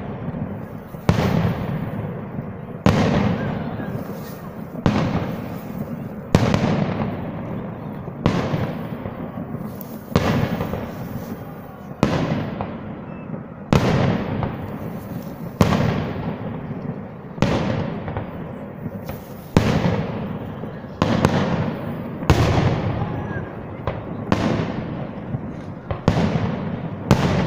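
Fireworks display: aerial shells bursting one after another, a sharp bang about every two seconds, each trailing off in a fading rumble.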